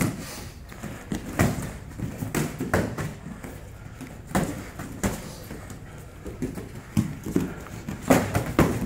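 Boxing gloves landing on gloves and bodies, mixed with bare feet stepping and stamping on the mats during sparring: irregular slaps and thuds, with heavier flurries about a second and a half in, around four and a half seconds, and near the end.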